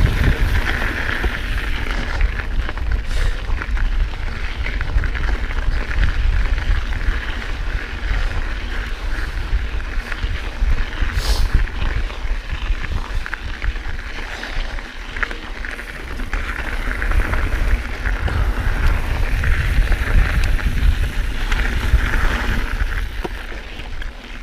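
Mountain bike ridden along a dirt trail: wind buffeting the on-bike camera's microphone, with tyre and frame rattle over the ground.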